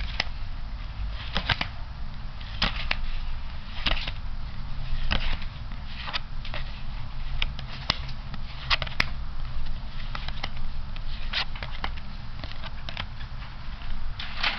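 Playing cards handled one at a time, with a short crisp click or snap about once a second as each card is slid across the deck, and a cluster of clicks near the end. A steady low hum runs underneath.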